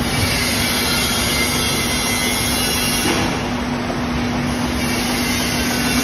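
DBFQ rotary label die cutter slitter rewinder running at speed: a steady mechanical noise with a constant low hum, as the paper label web runs over the rollers and winds onto the rewind roll.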